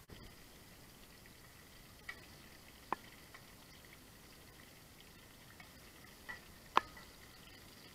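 Oil sizzling faintly around pieces of tofu frying in a square copper-coloured pan, with a few sharp clicks of a metal slotted spatula against the pan as they are turned, the loudest nearly seven seconds in.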